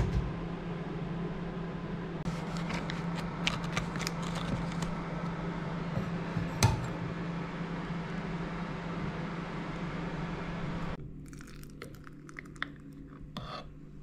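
Small kitchen handling sounds: light clicks, taps and crinkles as a pack of pre-cut butter is opened and a pat is set on toast on a wooden cutting board, with one sharper click about halfway through. Near the end come a few small taps of a utensil against a glass jar. A steady low hum runs underneath and drops away suddenly about three-quarters of the way through.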